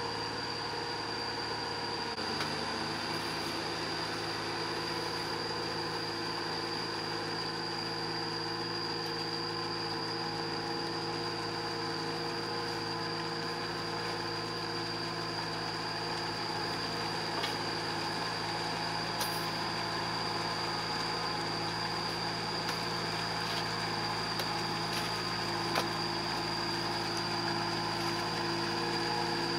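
Small cage-wheeled tractor's engine running steadily as it works a flooded rice paddy, with a steady high whine above it.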